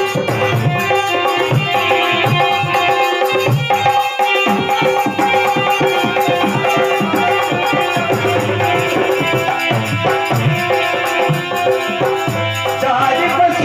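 Instrumental passage of a folk bhajan: a harmonium holding steady notes over a fast dholak beat, with small hand cymbals jingling.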